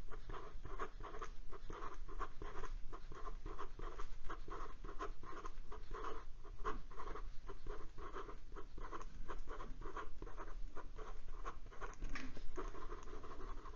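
Steel extra-fine nib of a TWSBI Classic fountain pen writing quickly on paper: a steady run of short scratching strokes, about three a second. The pen writes without skipping, its feed keeping up with the fast writing.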